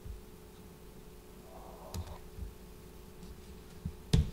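Computer mouse clicking a few times over quiet room tone with a faint steady hum; the sharpest click comes near the end.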